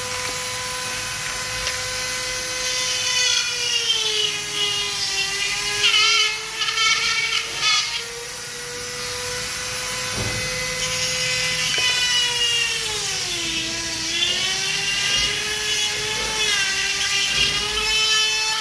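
Small electric rotary tool running with a steady whine, its pitch sagging twice as it bites into agarwood, grinding away the soft rotten wood to leave the resin.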